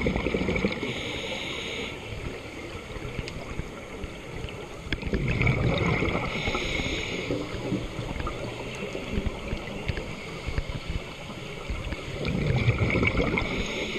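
Scuba regulator breathing recorded underwater: three bursts of exhaled bubbles rumbling and gurgling about six seconds apart, each with a brief hiss, over a steady underwater wash.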